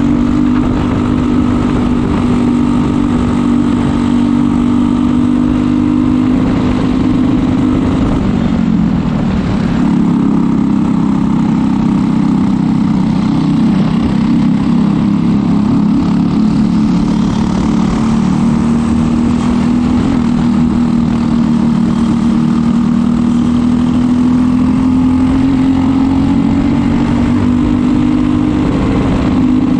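Briggs & Stratton LO206 single-cylinder four-stroke kart engine running hard under racing load, heard from on board the kart. Its note falls as the kart slows for a corner about eight seconds in, climbs back, rises slowly through a long stretch, and falls again at the very end.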